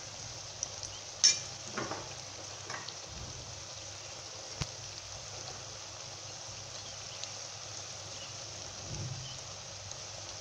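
Brinjal pieces and chopped onion frying in oil in a pan, a steady sizzling hiss, with a sharp tap about a second in and a few fainter ticks.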